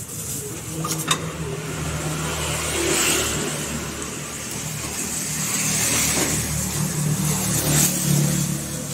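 Motor vehicles passing close by, their engine noise swelling about three seconds in and again near the end. A sharp click comes about a second in.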